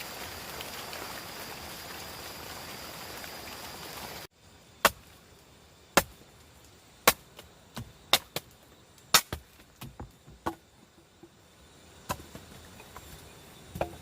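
Steady rain hiss that cuts off suddenly about four seconds in. Then come sharp chopping strikes on wood, roughly one a second, with lighter taps between.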